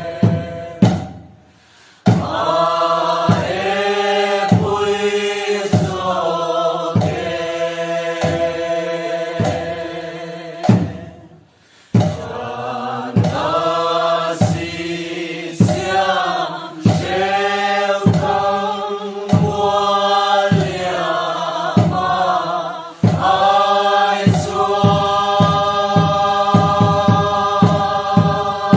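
Voices singing a Mizo chheihlam dance song in long held phrases over a steady beat of strikes. The singing breaks off briefly near the start and again about eleven seconds in.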